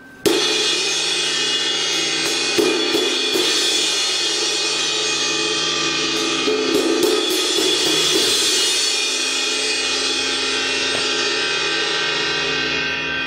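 Paiste PST 5 22-inch rock ride cymbal crashed with a drumstick, unmuffled: a first hit just after the start, then several more strikes over the next seven seconds keep a loud, dense wash going. The wash begins to fade near the end.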